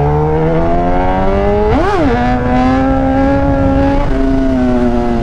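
Sport motorcycle's inline-four engine pulling at low speed, its note rising slowly, with a quick throttle blip about two seconds in, then holding steady and easing off near the end.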